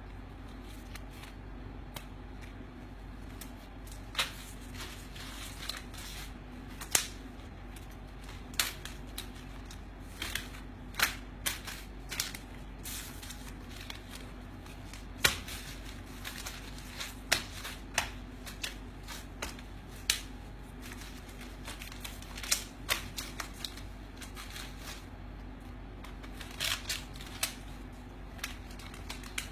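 Bundles of paper banknotes riffled and flicked by hand, giving irregular crisp snaps and flutters of paper, over a steady low hum.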